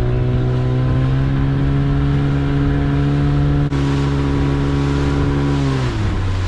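Small fishing boat's engine running under throttle at a steady pitch, then throttled back near the end.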